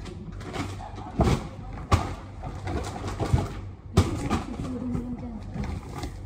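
Goods being handled while a box is packed: rustling, with sharp knocks about a second in, near two seconds and near four seconds. Just after the last knock comes a short, low, held cooing tone.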